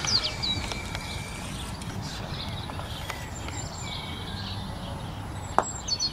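A single sharp knock of a croquet mallet striking the ball about five and a half seconds in, over steady outdoor background noise, with a few bird chirps near the start.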